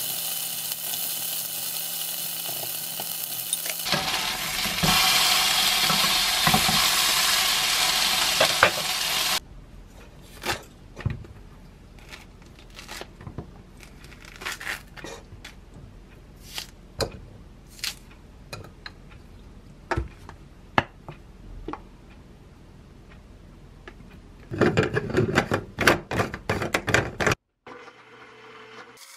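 Sotteok skewers (sausage and rice cake) sizzling as they fry in a nonstick pan with sauce brushed on, for about the first nine seconds. Then quieter scattered taps and clicks of a hallabong orange being peeled and handled by hand. Near the end comes a burst of louder noisy handling lasting a few seconds.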